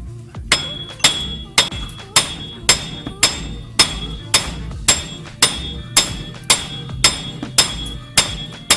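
Hammer blows on the seized steel wheel hub of a car's front suspension, knocking it loose. About two evenly spaced strikes a second, each with a bright metallic ring.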